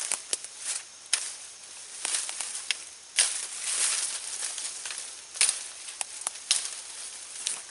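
Machete blade swiping through the leafy end of a green sapling: a string of sharp, irregular chops, each with a swish and rustle of leaves and twigs.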